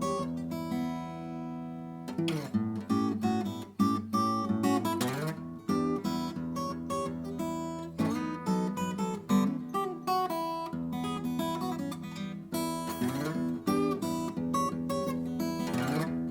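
Acoustic guitar being played: a chord is left ringing for about two seconds, then a run of picked and strummed chords follows.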